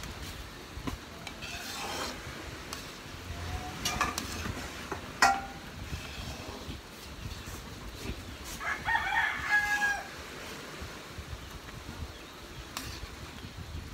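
A rooster crows once, a little past halfway, over the scraping and knocking of a spoon stirring thick sticky rice in a metal pan. The sharpest knock comes about five seconds in.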